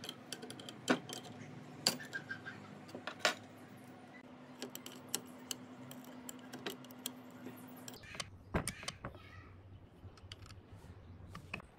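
Open-end spanner working a nut onto a bolt through a pine chair leg: scattered sharp metal clicks and clinks as the wrench is fitted and turned on the nut and hardware is handled, over a faint steady hum that stops about eight seconds in.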